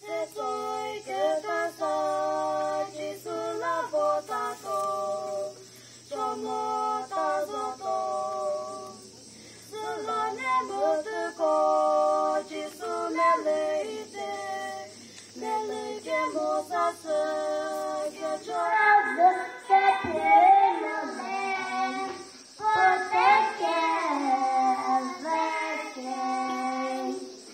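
Children singing a duet, two young voices together in sung phrases with short pauses between them.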